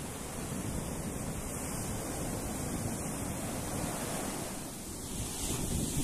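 Ocean surf breaking and washing up a sandy beach: a steady rush of water and foam, swelling a little near the end as a wave runs up the shore.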